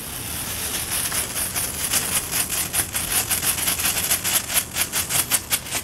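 Small ground firework burning: a steady hiss of spraying sparks, with rapid crackling pops at several a second that set in about a second and a half in and grow stronger.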